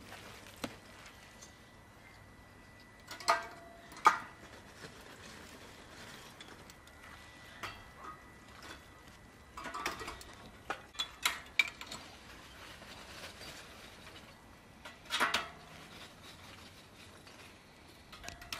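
Irregular clinks and knocks of a spoon against small clay spice pots, with raw chicken pieces being handled on a wooden board as they are seasoned. The sharpest knocks come about three and four seconds in, with more clusters around ten, eleven and fifteen seconds.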